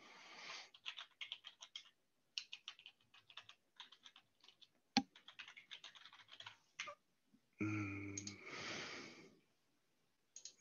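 Typing on a computer keyboard: quick runs of keystrokes, with one louder single click about five seconds in and a longer rustling noise around eight seconds in.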